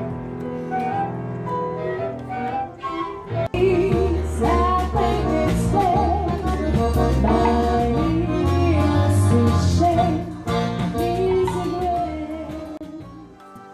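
Live chamber music from two violins, a cello and a flute, holding sustained notes. About three and a half seconds in it cuts to a louder lounge band: a singer over accordion and drums, fading out near the end.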